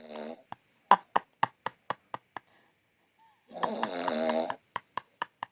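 A person snoring: the end of one snore at the start, then one long snore with a hoarse hiss about halfway through. Short, sharp clicks are scattered between the snores.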